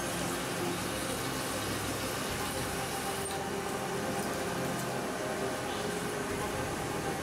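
A CNC machining centre power-tapping stainless steel with a spiral-flute M16 tap under water-soluble coolant. The spindle and coolant make a steady mechanical noise with faint tones, and the low hum drops away a little over two seconds in.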